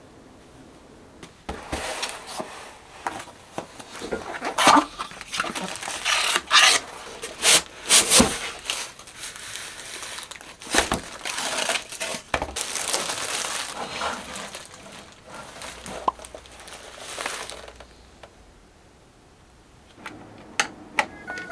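Crinkling and rustling, broken by sharp clicks and knocks, as something is handled; it dies down about three-quarters of the way through, with a couple of clicks near the end.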